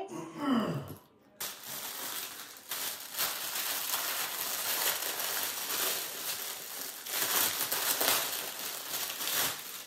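Packaging crinkling and rustling steadily as it is handled, after a brief voice sound falling in pitch at the start.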